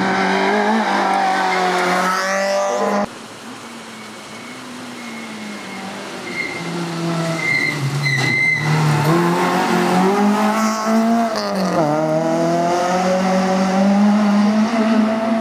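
Rally car engines at full throttle. One car revs high for about three seconds before a sudden cut. Another rally car then approaches, its engine growing steadily louder and dipping in pitch at gear changes and lifts before rising again.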